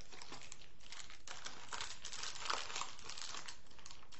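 Toy packaging crinkling and crackling as it is handled, a dense run of small crackles that gets busier about two seconds in.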